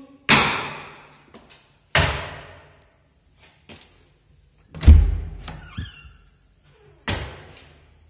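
Four loud, sudden bangs, each echoing away over about a second. The loudest, near the middle, has a heavy low thud.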